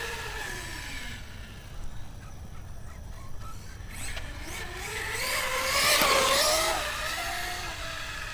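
Pro-Line Pro-MT 4x4 1/10 scale RC monster truck on a 4S battery, its electric motor and gears whining during a speed run. The whine falls away in the first second, then rises to its loudest about six seconds in and falls again as the truck runs off.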